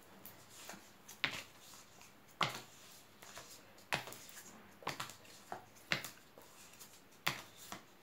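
Tarot cards being dealt one at a time onto a table, each landing with a short, sharp slap, about seven in all, roughly a second apart.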